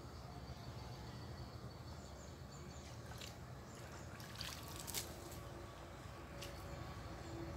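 Faint water sounds of a hand scoop net being worked through shallow pond water: light trickling, with a few short, sharp little splashes about halfway through.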